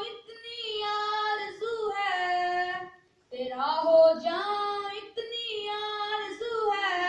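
A boy singing an Urdu hamd, a hymn in praise of God, solo and unaccompanied, in long held melodic phrases with a short breath pause about three seconds in.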